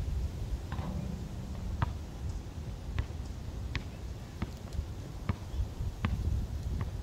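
A basketball being dribbled on a concrete court, with sharp bounces about every three-quarters of a second, over a low wind rumble on the microphone.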